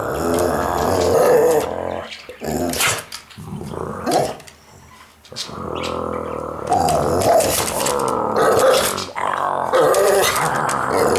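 Pit bull puppy growling in long, drawn-out growls, with a pause of a few seconds in the middle before the growling starts up again.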